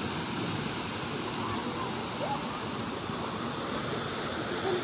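Water rushing steadily over small stepped weirs in a concrete channel.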